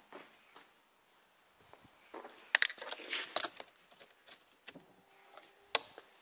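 Rustling and clicking of hands and a handheld camera at a car's steering column and controls, loudest a little past halfway, with a single sharp click near the end. A faint steady hum sets in about five seconds in.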